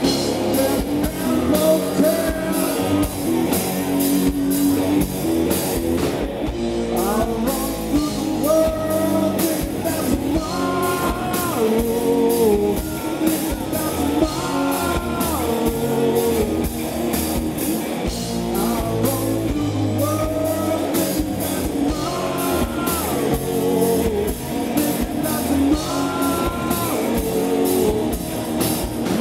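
A live rock band playing: a male singer over electric guitar, bass and a drum kit keeping a steady beat.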